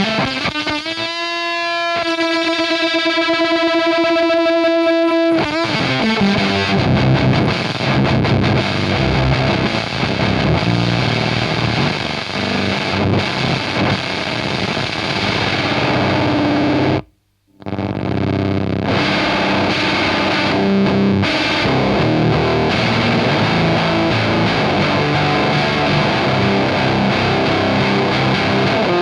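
Electric guitar with a bridge humbucker played through a Soda Meiser–style vintage fuzz pedal on its low-gain setting, into a valve amp and 4x12 cab. One sustained fuzzed note rings steadily early on, then gives way to gritty chords and riffs. The playing cuts out dead for an instant about two-thirds of the way through, then starts again.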